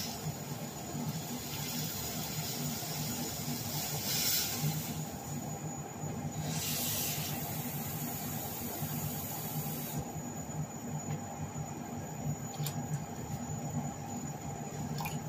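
Water poured from a plastic measuring jug into a pot on a lit gas burner, splashing in a few short spells, over a steady low hum and hiss.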